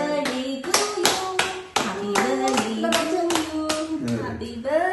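A small group clapping hands in a steady beat, about three claps a second, while voices sing along.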